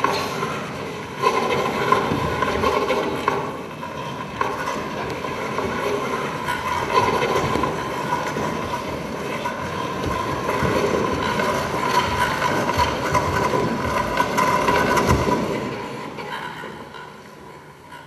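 Train-like rumbling and clattering with a steady whine, fading away over the last couple of seconds.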